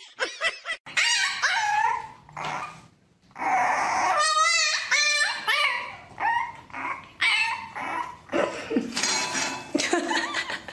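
Dogs whining and yipping in high, wavering calls, with a short break about three seconds in; after the break a puppy whines and yips at the bars of its wire playpen.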